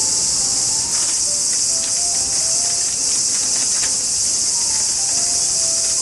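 Steady chorus of insects chirping, with a faint melody of background music beneath it.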